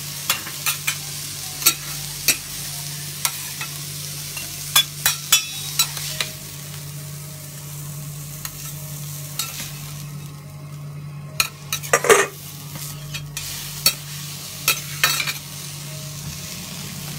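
Food sizzling on a teppanyaki iron griddle, with many sharp clicks and scrapes of metal spatulas against the griddle and plates over a steady low hum. The loudest is a ringing clank about twelve seconds in.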